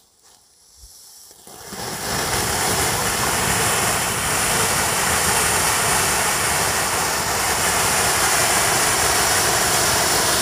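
Peacock fancy ground fountain firework spraying fanned jets of sparks: a loud, steady rushing hiss that starts about two seconds in.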